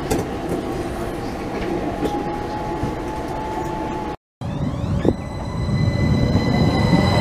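Riding inside a driverless Copenhagen Metro train (Hitachi Rail Italy Driverless Metro) on an open-air section: steady wheel-on-rail rumble with occasional clicks and a faint motor tone. After a sudden cut about four seconds in, a metro train approaches close by, its electric drive whining in several steady high tones over a growing rumble, with the whine beginning to rise near the end.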